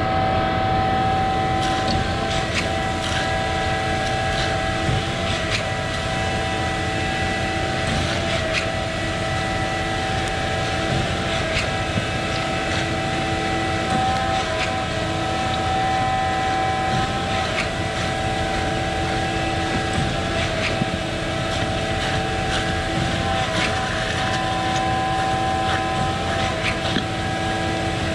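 Concrete boom pump truck running steadily under load during a slab pour: the engine drones with a held whine, and short clicks and knocks sound here and there.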